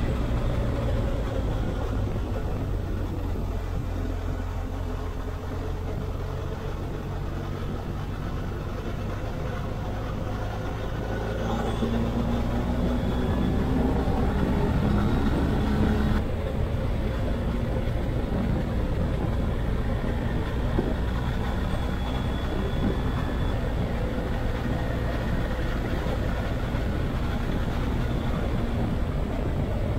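BMW R 1250 GS Adventure motorcycle running at road speed, with wind rush over the rider's microphone. The engine note rises for a few seconds between about 11 and 16 seconds in, then returns to a steady cruise.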